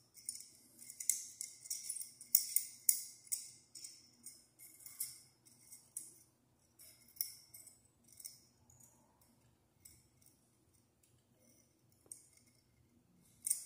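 Irregular light clicks, clinks and rustles of small parts and wiring being handled during ceiling fan assembly, busiest in the first few seconds and again near the end.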